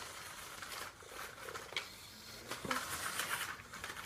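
Electric RC car's motor whirring faintly, with a few short gritty scrapes as its wheels work in dirt.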